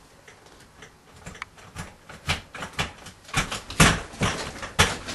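A chair creaking and knocking under someone seated on it. A run of irregular clicks and knocks starts faint about a second in and grows louder and quicker.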